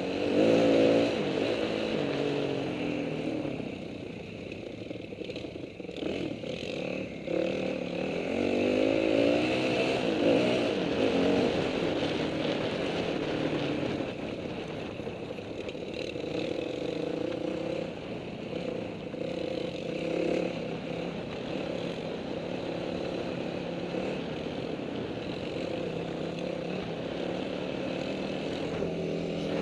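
Dirt bike engine running under load on a trail, its revs repeatedly climbing and dropping with throttle and gear changes, with the hardest rev-ups about a second in and again around eight to eleven seconds in.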